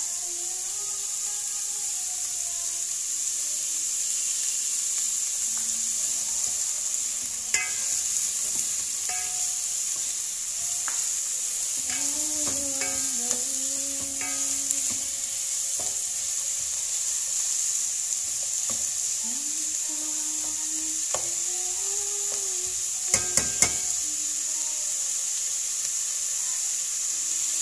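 Diced onions and red bell pepper sizzling as they fry in a pot, stirred with a plastic spatula, a steady hiss. The spatula knocks sharply against the pot a few times, three in quick succession near the end.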